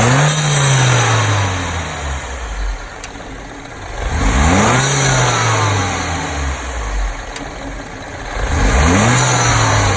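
BMW N13 1.6-litre turbocharged four-cylinder engine blipped three times, each rev rising quickly and sinking slowly back to idle, with the turbo fluttering as the throttle closes.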